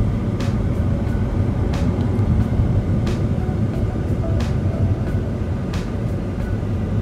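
Car driving at freeway speed, heard from inside the cabin: a steady low rumble of road and engine noise, with a faint click about every second and a quarter.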